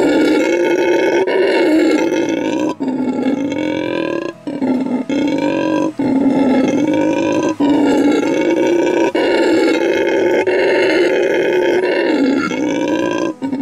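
Howler monkey calling: a loud, repeated roar, each call lasting about a second and a half, with brief breaks between them. This is a territorial call.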